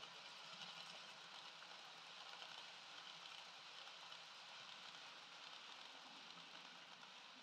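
Dapol N gauge HST model train running past on its track: a faint, steady running noise of its motor and wheels on the rails.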